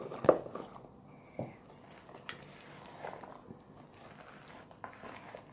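Diced zucchini tipped into a plastic mixing bowl of cake batter, with a sharp knock just after the start and a smaller one about a second later. Then faint soft scrapes and squelches as a spatula stirs the cubes in.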